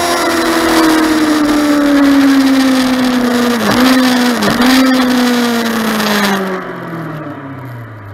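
Motorcycle engine on a closed or easing throttle, its note falling steadily as the bike slows, with two brief dips in pitch a little under a second apart. Wind rushing over the microphone cuts off suddenly about six seconds in, leaving the engine fading lower.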